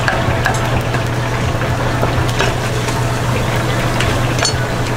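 A steady low mechanical hum under a continuous noisy hiss, with a few light clicks and clatters.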